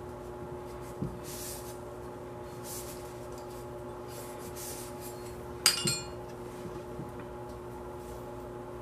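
Oily rag rubbing over the metal parts of an AR-15, with a small knock about a second in and a sharp metallic clink about halfway through as a metal part is handled or set down, ringing briefly. A steady hum sits underneath.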